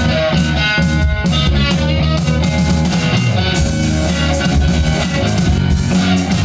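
A rock band playing loud: guitars over a drum kit.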